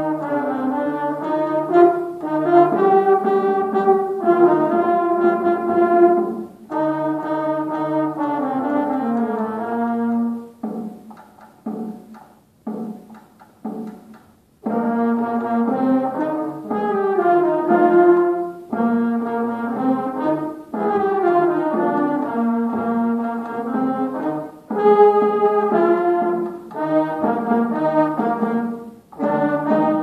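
Beginning concert band playing a piece in full chords, with brass, saxophones and percussion. About a third of the way in, the held chords give way to a few seconds of short, detached notes before the full band comes back in.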